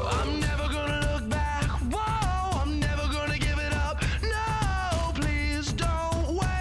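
Pop song with a sung melody over a steady drum beat and bass.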